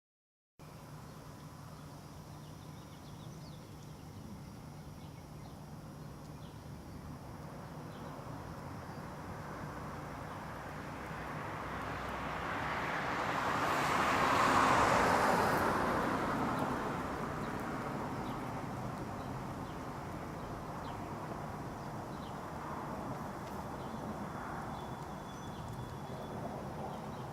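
A vehicle passing by outdoors: a steady background noise that swells over several seconds, peaks about halfway through and slowly fades again. It starts abruptly after a moment of silence.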